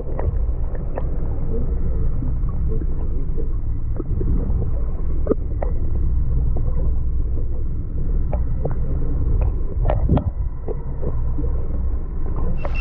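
Muffled underwater sound: a steady low rumble of moving water with scattered clicks and knocks, everything above the low and middle range cut away.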